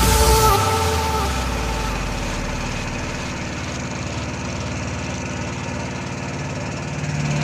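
An engine running steadily at a low drone, with music cutting off in the first second.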